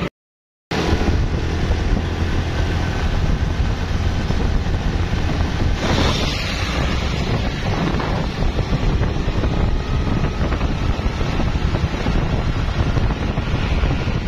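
Wind buffeting the microphone over a steady low rumble of a moving vehicle and street traffic, after a brief gap of silence at the start.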